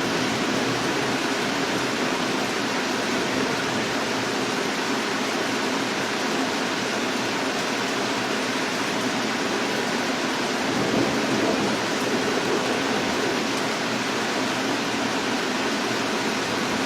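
Steady, unbroken rush of fast-flowing floodwater.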